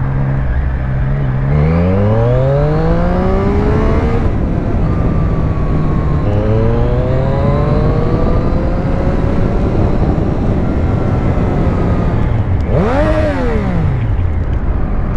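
Triumph Street Triple S 660 A2's three-cylinder engine pulling hard under way. The revs climb for a couple of seconds, drop at a gear change about four seconds in, then climb again, with a quick rise and fall in pitch near the end. All of it sits over a steady rush of riding wind.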